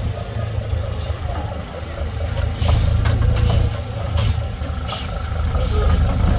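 DAC 665T 6x6 truck's diesel engine running with a steady deep rumble as it crawls over a steep slope, with several short hisses in the second half.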